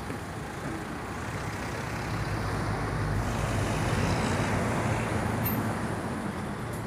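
Road traffic noise from trucks and cars queued in a traffic jam, engines running with a steady rumble. It swells louder around the middle, then eases back.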